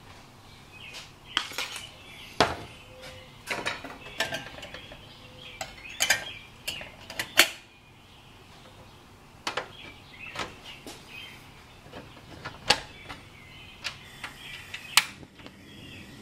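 Irregular sharp clicks and metallic clinks as a portable gas camp stove under a stainless coffee percolator is handled and lit, the burner alight by the end.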